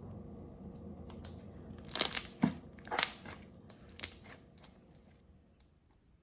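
Hands squeezing and pressing a clear-glue and Vaseline slime, with about five sharp sticky pops and crackles clustered in a couple of seconds near the middle.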